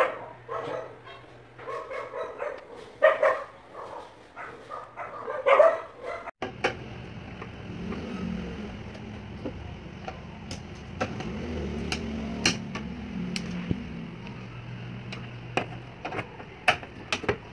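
A dog barking repeatedly for about six seconds. Then the sound cuts suddenly to a steady low hum with scattered sharp clicks.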